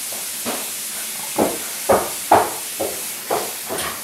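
Footsteps, about two a second, over a steady hiss.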